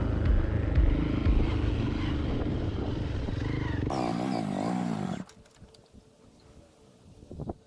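Hero Impulse motorcycle's single-cylinder engine running over rough ground, with heavy low knocks and clatter. The revs rise and fall briefly about four seconds in, then the sound cuts off suddenly to faint background.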